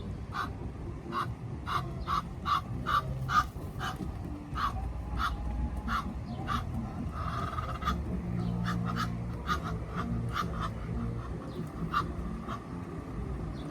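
Ducks quacking: runs of short, repeated calls, several a second, with a brief pause around the middle, over a steady low rumble.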